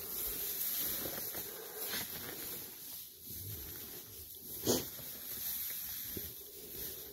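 Footsteps rustling through deep straw bedding among a pen of ewes, with one short sharp noise about two-thirds of the way in.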